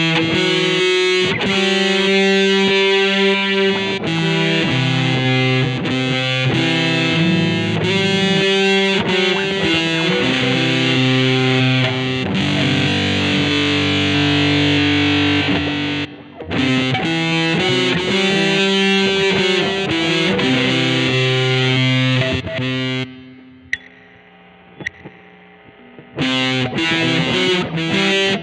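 1982 Vantage VE-550 electric guitar played with distortion and effects, chords and single-note lines ringing out in a continuous run. The playing stops briefly about halfway through, drops away for a few seconds near the end, then starts again.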